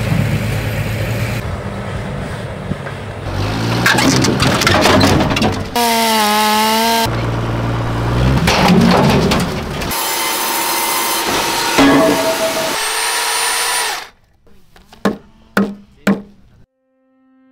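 A run of timber-yard and woodworking sounds: a heavy truck's engine running, then machine and power-tool noise with clicks and knocks. Near the end come four or five separate sharp knocks of tool on wood, on a squared timber beam.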